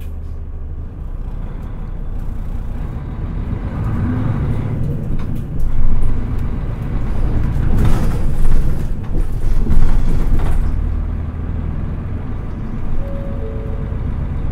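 Mitsubishi Fuso New Aerostar city bus diesel engine heard from inside the bus, idling steadily at first, then working harder as the bus pulls away and accelerates through the gears, before easing back to a steadier run near the end.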